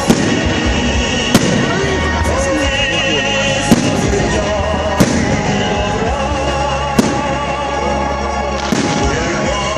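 Fireworks display: about six sharp aerial firework bangs, one every second or two, over music playing throughout.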